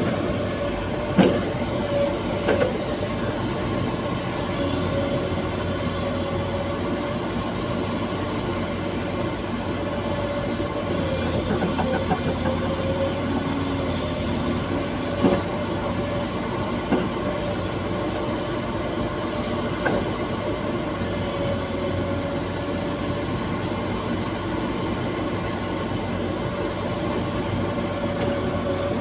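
Excavator engine running steadily, heard from inside the operator's cab, with a steady whine over the drone. A few sharp knocks and rattles come through, the loudest about a second in and about 15 seconds in.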